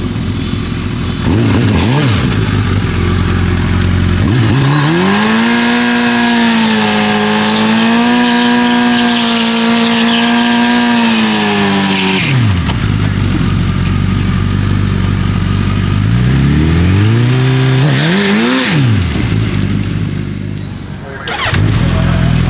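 Suzuki Hayabusa drag bike's inline-four engine idling, then revved and held high for about eight seconds during a burnout of the rear tyre, the pitch wavering slightly, before dropping back to idle. A couple of quick revs rise and fall near the end.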